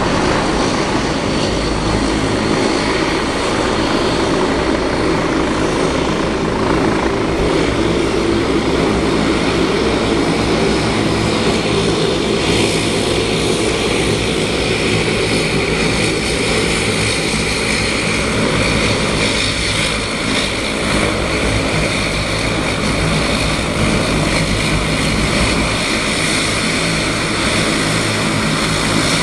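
Twin turboprop engines of a Canadair CL-415 water bomber running as it taxis, a steady drone of engines and propellers with a high turbine whine that grows stronger about halfway through.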